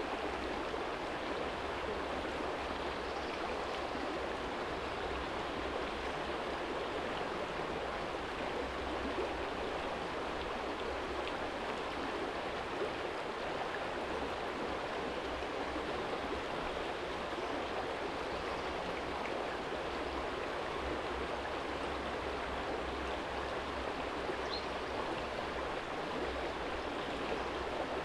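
Small shallow stream flowing steadily over a stony bed, a continuous rushing babble of water. A brief faint high chirp, such as a bird, sounds once about 24 seconds in.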